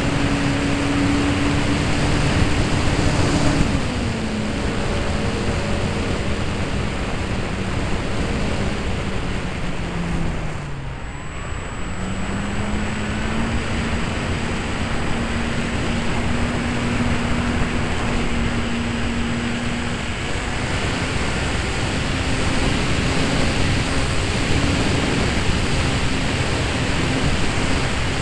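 Onboard sound of a Parkzone Mustang RC plane in flight: the brushless electric motor and propeller hum under heavy wind rush over the airframe-mounted microphone. The motor's pitch drops about 4 seconds in, sinks further and briefly fades about midway, then picks up again and holds steady.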